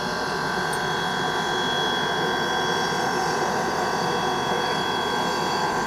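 Steam locomotive standing at rest, giving off a steady hiss of steam with a thin, steady whine running through it.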